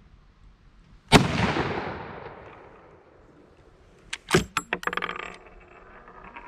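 A single rifle shot about a second in, its report fading out over the next second or two. Then a quick run of sharp metallic clicks and clinks a few seconds later.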